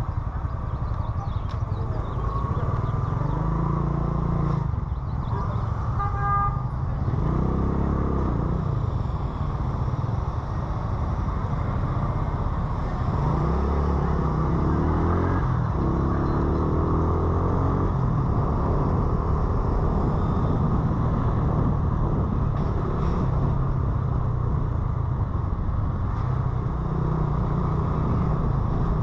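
Motorcycle engine heard from the rider's seat, rising and falling in pitch several times as it speeds up and slows in city traffic, over steady wind and road noise. A vehicle horn toots briefly about six seconds in.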